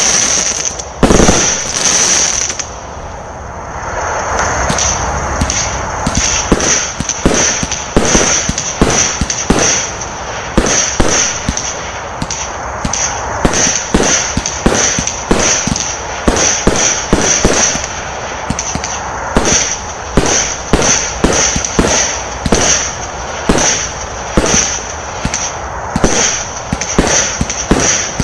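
Vivid Pyrotechnics 64-shot, 20 mm-bore consumer firework cakes (W.T.F. Mini, then Velocity Mini) firing shot after shot. A few loud bangs open it and a stretch of hissing crackle follows about four seconds in. After that comes a steady run of sharp shots, about two a second.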